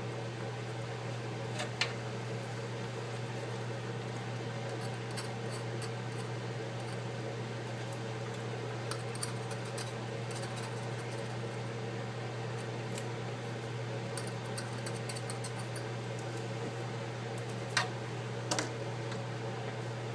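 Small scraping ticks and a few sharp clicks as leftover glass fragments and glue are picked off an iPad 4 frame, over a steady low hum. The loudest clicks come twice near the end.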